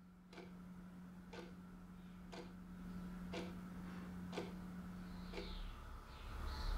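A clock ticking faintly, one tick a second, over a steady low hum that stops shortly before the end.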